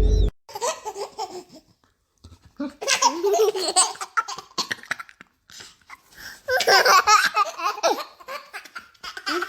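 A person laughing in several separate bursts, with short quiet pauses between them.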